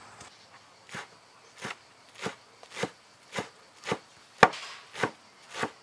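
Cleaver chopping fresh herbs on a wooden cutting board. About nine even strokes, roughly one every 0.6 seconds, start about a second in; one stroke a little past the middle is the loudest.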